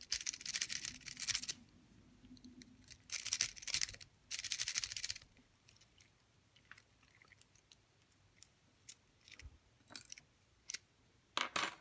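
A metal lock-pick rake scraping rapidly in and out of a lock's keyway against the pins, in three bursts of about a second each, then scattered small metallic clicks and two short scrapes near the end.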